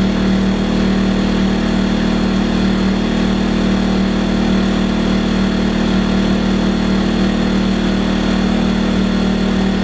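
WEN 56200i 2000-watt inverter generator running steadily, its small four-stroke engine holding one even pitch.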